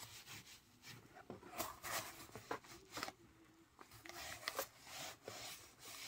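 Wool dauber rubbing dye into tooled leather: faint, uneven swishing strokes with a few light clicks.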